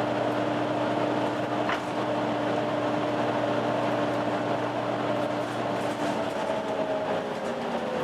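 Volvo B9TL double-decker bus running, with the hoover-like whine of its engine cooling fan as a steady set of tones. About six seconds in the tones shift, and near the end one slides lower in pitch.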